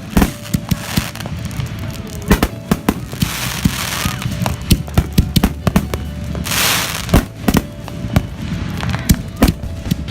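Fireworks going off in quick succession: many sharp bangs and pops, with two longer hissing, crackling bursts, one about three seconds in and another about two-thirds of the way through.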